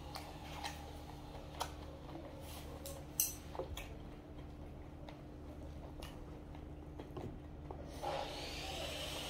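Quiet eating at a table: chewing, with a few light clicks of a wooden spoon and chopsticks against the lunchbox containers, over a steady low hum. A hiss comes in near the end.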